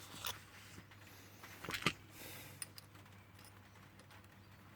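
A few light clicks and taps of a small metal padlock and tool being handled, the sharpest pair just under two seconds in, over a faint steady low hum.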